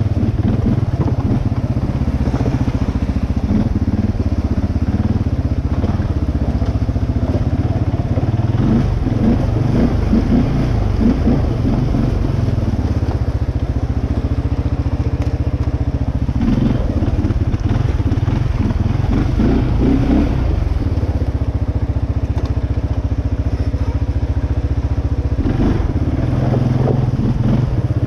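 CFMOTO 520S ATV's single-cylinder engine running at crawling speed, its revs rising and falling with the throttle, while the tyres crunch over loose stones and through shallow creek water.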